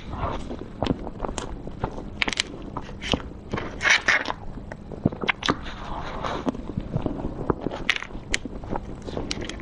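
Close-miked eating of cookie-crumb cream cake: many sharp, irregular wet mouth clicks and smacks while chewing, along with a metal spoon cutting into the cake.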